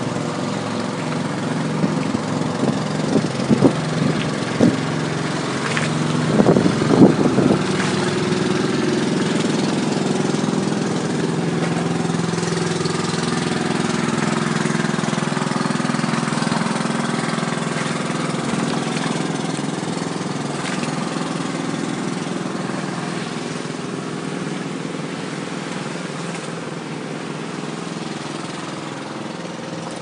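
Small boat engine running steadily, with a few short louder sounds over it between about three and seven seconds in; the engine fades a little towards the end.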